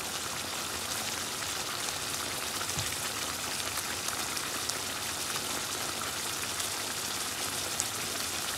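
Chicken and bottle gourd curry sizzling in a nonstick pan on the stove: a steady hiss with scattered small pops.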